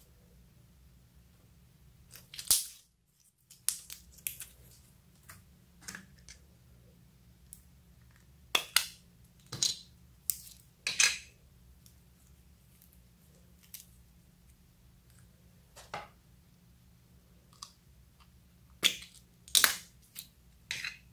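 Slime being handled and mixed by hand, making irregular short sharp pops and snaps, about a dozen, a few of them loud, with a brief silent gap about three seconds in.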